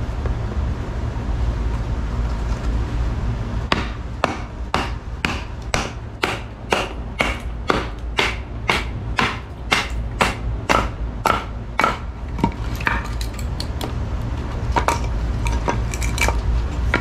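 A baton striking the spine of a Jungle King knife with a six-inch 1065 steel blade, driving the blade through a knotty log to split it. The blows start about four seconds in, come about two a second, then slow to a few scattered strikes after about twelve seconds.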